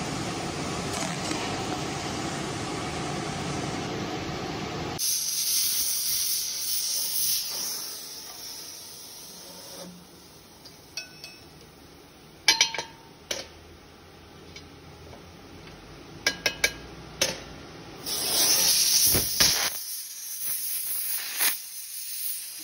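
Gas torch hissing while diamond segments are silver-brazed onto a steel core drill bit. Several sharp metal clinks come in the middle, and the hiss is loudest a little before the end.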